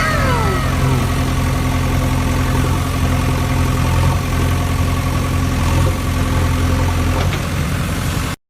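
A vehicle engine idling steadily with a deep, even hum, a few falling whistle-like tones over it in the first second. It cuts off suddenly just before the end.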